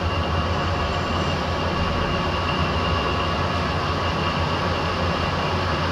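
Manual lathe spindle running steadily in high gear: an even machine hum with a few steady tones over it, the tool not yet fed to depth.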